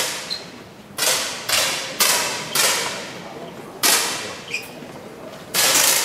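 10 m air pistols firing in an indoor range hall: about seven sharp shots at uneven intervals, each trailing off in a short echoing tail.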